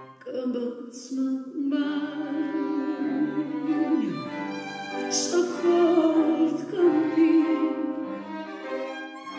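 A woman singing through a microphone, accompanied by a piano quintet: grand piano, two violins, viola and cello.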